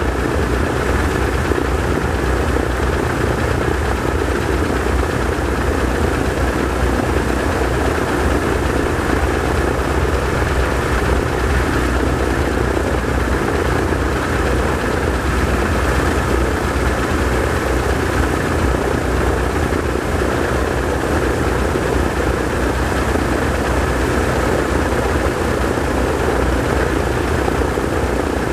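Consolidated PBY Catalina's two Pratt & Whitney R-1830 Twin Wasp radial engines running steadily in a ground engine run, both propellers turning.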